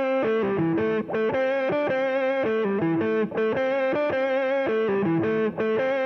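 Background music: a solo distorted electric guitar playing a repeating riff of held notes.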